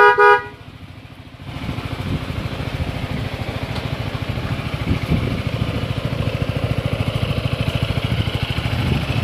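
Two short horn blasts, a steady buzzy tone, end right at the start. From about a second and a half in, a Yamaha X-Max scooter's engine runs with a steady, fast, even throb.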